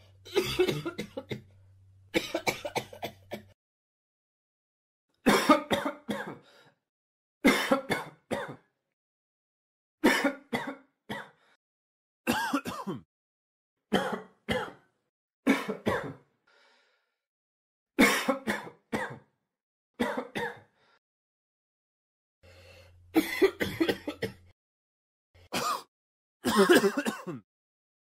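A person coughing over and over, in short fits of several coughs each. There are about a dozen fits, with brief silences between them.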